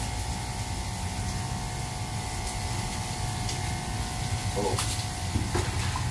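Water spraying from a handheld shower hose onto a wet cat's fur during a rinse, over the steady hum of a water pump.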